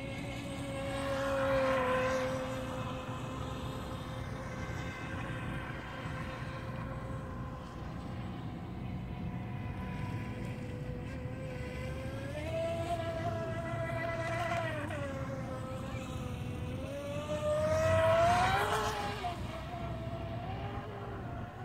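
Feilun FT012 RC boat's brushless electric motor whining as the boat runs across the water, its pitch rising and falling with the throttle. It gets louder as the boat passes close about two seconds in and again near the end, with the pitch sweeping up on the second pass.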